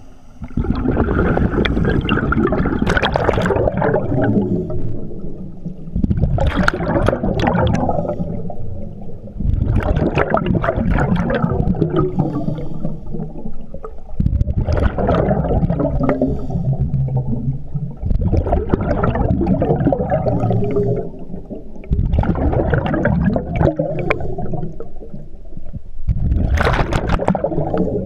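Scuba regulator breathing underwater: the diver's exhaled bubbles gurgle and rumble past the camera in a rhythm of about one breath every four seconds, seven times, with quieter inhales between.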